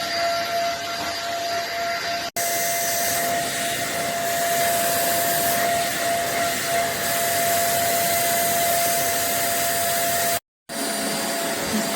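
Vytronix HSV3 corded stick vacuum cleaner running steadily: a constant whine over a rushing hiss. The sound breaks off for an instant about two seconds in and again briefly near the end.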